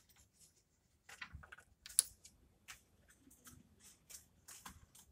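Irregular plastic clicks and taps as the keypad buttons of a handheld signal calibrator are pressed and the unit is handled, the sharpest click about two seconds in.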